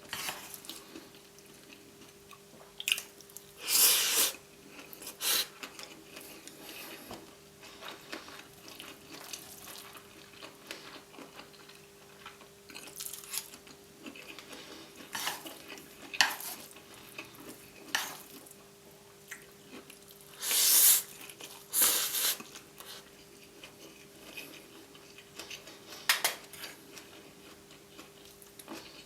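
Close-up eating: a fork or spoon clinking and scraping on a plate, with chewing and several loud noodle slurps of up to about a second each, the biggest about 4 and 21 seconds in. A faint steady hum runs underneath.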